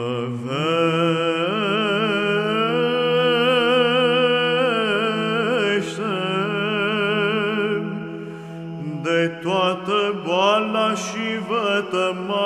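Romanian Orthodox Byzantine chant: a long, ornamented sung melody, the syllables drawn out over many notes, over a steady low held drone (ison). The line falls away about eight seconds in, and a new phrase rises up.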